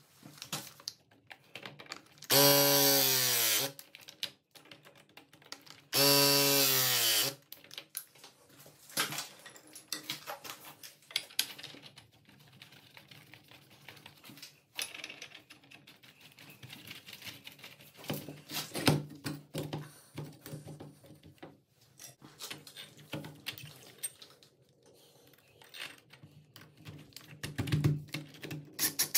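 Two short runs of a cordless drill-driver, each about a second and a half, a few seconds apart, followed by many scattered clicks and light knocks of metal pipe fittings and tools being handled.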